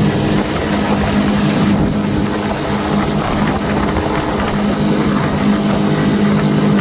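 Boat's outboard motor running steadily at constant speed, a low even hum over a broad rushing noise. The motor's lower unit has just been refilled with gear oil, which the owner says made it better.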